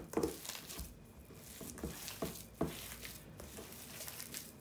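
Hands kneading and squashing raw spiced lamb mince in a stainless steel bowl: irregular wet squelches, roughly one or two a second.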